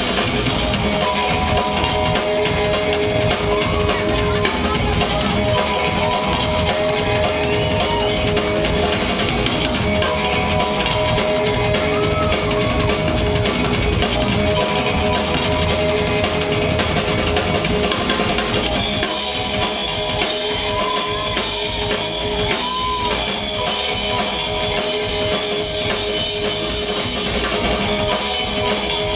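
Live rock music: a drum kit played hard with sticks, with the kick drum prominent, over steady held instrumental notes. About two-thirds of the way in, the low drums thin out while the held notes carry on.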